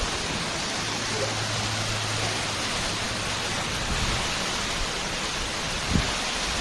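Steady, dense rushing of a waterfall heard close up, its water pouring down in full spring flow. A brief low bump about six seconds in.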